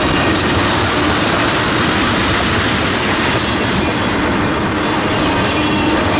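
Freight train of steel tank cars rolling steadily past, the wheels on the rails making a continuous loud rolling noise with a thin steady squeal running through it.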